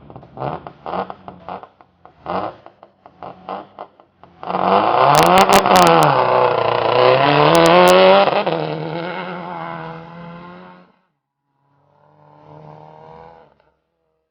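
Off-road rally vehicle engine revving hard, its pitch dipping and climbing again as it goes through the gears, with a few sharp clicks over it. It comes up loud a few seconds in and fades away over several seconds, and a fainter engine note returns near the end.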